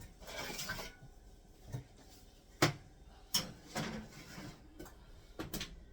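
Kitchen handling sounds from putting sweet potatoes into the oven to bake: a short rustle, then a few scattered sharp clicks and knocks, like an oven door and rack being worked.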